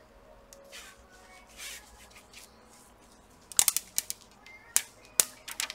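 Soft rustling as gloved hands handle a new laptop LCD panel, then, from about three and a half seconds in, a run of sharp crackles and snaps as the protective plastic film starts to be peeled off the screen.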